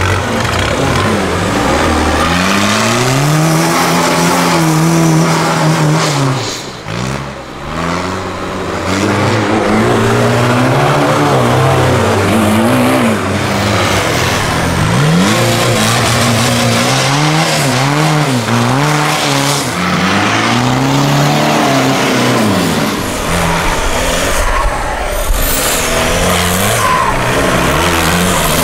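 Off-road 4x4 competition truck engines revving hard, rising and falling in pitch again and again under load as the trucks claw up steep sand banks, with a brief lull about seven seconds in.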